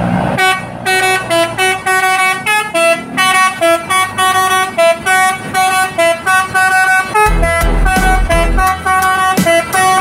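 Basuri telolet horn, a multi-trumpet musical bus air horn, playing a fast melody of short, clipped notes. A low, regular pulsing beat joins in about seven seconds in.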